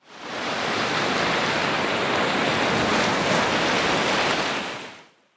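Ocean surf sound effect: a steady rushing wash of noise that swells in over about half a second and fades away during the last second.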